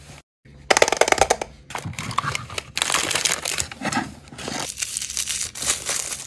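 Plastic toy packaging being handled and opened up close, with rapid crackling and clicking of the plastic, loudest about a second in. Near the end, tissue paper rustles and crinkles.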